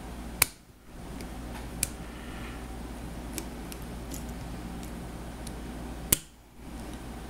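Needle-nose pliers clicking against a roll pin and axle end as the pin is nudged into centre: two sharp loud clicks, one about half a second in and one near the end, a smaller click about two seconds in and faint ticks between, over a steady low hum.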